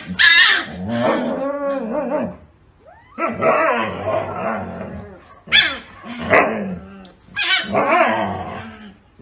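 A husky vocalizing in four bouts of drawn-out, wavering calls, with a few short barks among them.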